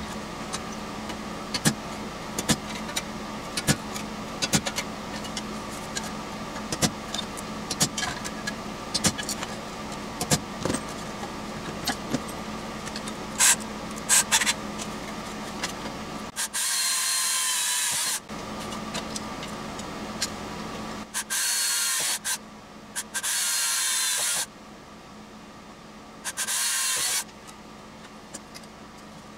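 Metal parts and tools clicking and clattering on a workbench, then a cordless drill whirring in four short bursts of one to two seconds each.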